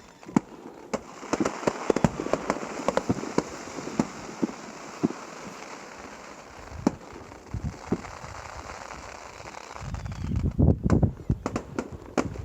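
Fireworks going off in a rapid series of sharp bangs and crackles, thickest in the first few seconds and sparser in the middle. Near the end comes a dense run of deep, low thuds.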